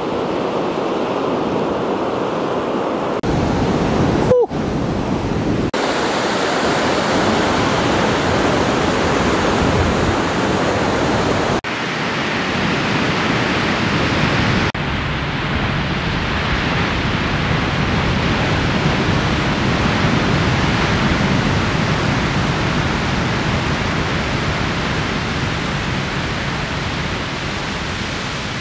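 Ocean surf breaking and washing, a steady rushing noise. The sound shifts abruptly several times where clips are cut together, about 3, 6, 12 and 15 seconds in, and fades slightly near the end.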